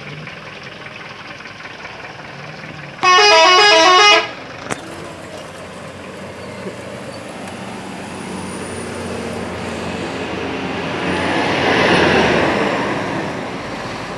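A bus's multi-tone 'telolet' musical horn plays a quick run of stepping notes for just over a second, about three seconds in. Afterwards vehicle engine and road noise build up, loudest near the end, then fall away.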